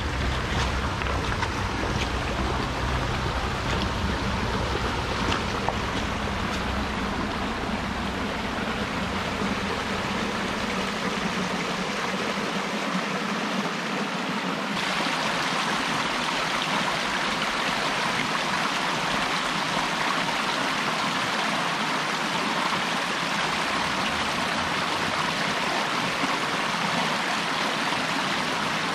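A small mountain creek running and splashing over rocks in shallow cascades, a steady rush of water. About halfway through, the sound becomes brighter and hissier, with less low rumble.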